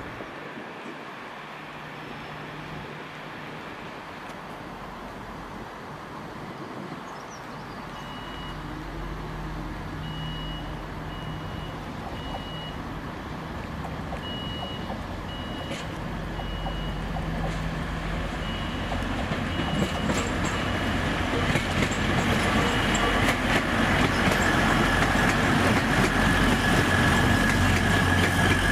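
Grand Central Class 180 diesel multiple unit approaching and drawing into the platform, its underfloor diesel engines growing steadily louder into a low rumble. A run of short, high beeps sounds through the middle.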